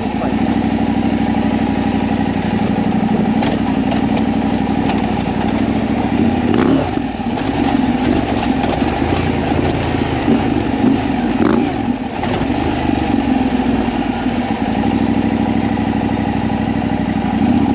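KTM 890 Adventure R's parallel-twin engine running under way off-road, revving up and easing off a few times in the middle.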